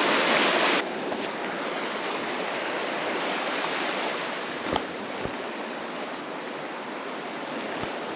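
Steady rush of running water. It drops abruptly in level a little under a second in, with a single brief knock about halfway through.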